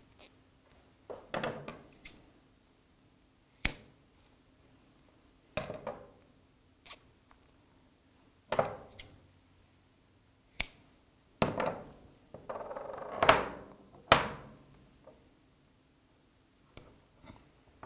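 Scissors snipping double-sided outdoor mounting tape and the tape being handled and pressed onto an aluminium scale: a scattering of sharp snips and clicks with short rasps of tape peeling, one longer rasp past the middle, with quiet gaps between.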